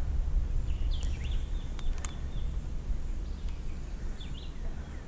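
Small birds chirping in short, quick calls over a low steady rumble, with two sharp clicks about two seconds in.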